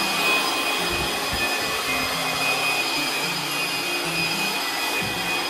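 Pet dryer blower running steadily at high power, a loud rush of air with a high whine, blowing water off a wet dog's coat.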